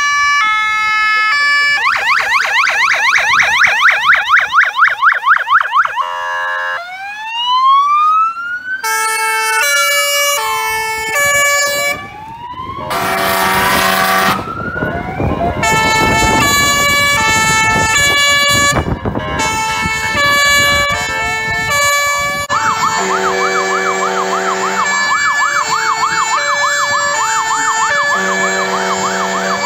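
Several fire engines' sirens sounding together: two-tone horns stepping back and forth between pitches, overlaid by a fast yelp a couple of seconds in, slow rising and falling wails around the middle, and a rapid warble through the last third. A loud blast cuts across them about thirteen seconds in.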